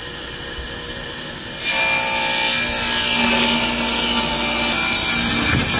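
Power saw cutting a sheet of plywood: the blade runs for about a second and a half, then becomes much louder and harsher as it goes through the wood, holding steady until it stops near the end.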